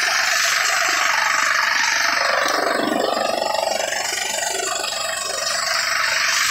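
Chaff cutter running under load, chopping dry straw and blowing the cut chaff out in a steady, dense rush of noise.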